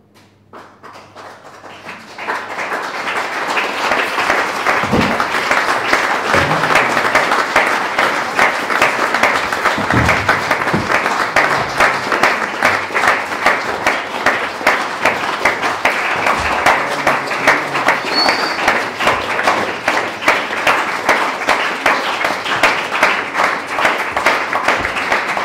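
Audience applause: a few scattered claps that swell within about two seconds into steady, dense clapping.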